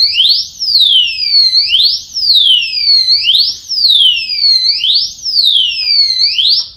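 A motorcycle disc lock's built-in alarm siren sounding loudly and piercingly. It wails in repeated sweeps, each a long fall in pitch and a quick rise back, about one every second and a half, and it cuts off just before the end.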